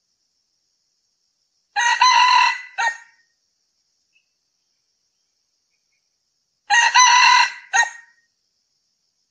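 Male red junglefowl crowing twice, about five seconds apart. Each crow is a quick run of notes cut off by a short clipped final note.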